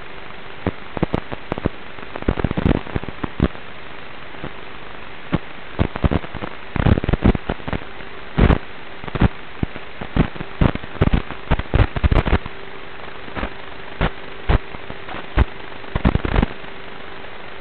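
Irregular sharp clicks and clatters picked up on board a Traxxas Slash RC truck as it bounces over a gravel dirt road, over a steady hiss with a faint hum. The clatters come in thick clusters, with a last brief burst near the end.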